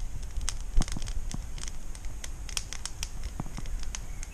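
Small campfire of dead twigs burning and crackling, with irregular sharp pops.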